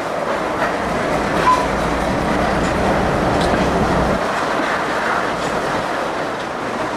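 Passenger car of a slow excursion train rolling along the track: a steady rumble and rattle with occasional wheel clicks over rail joints. A deeper low rumble fades out about four seconds in.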